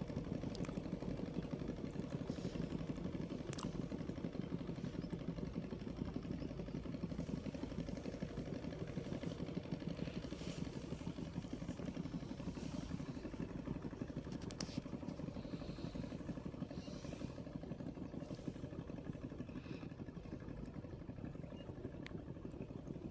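A small engine running steadily, a low rumble with a faint held hum, with scattered light clicks and taps over it.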